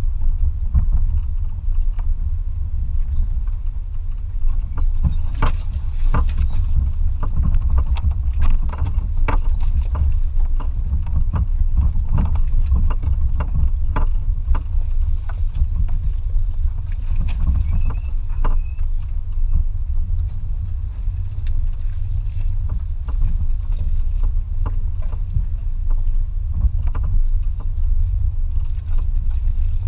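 Steady low rumble of a vehicle, most likely the 2004 Toyota Tacoma TRD Off-Road pickup, with scattered clicks and knocks throughout.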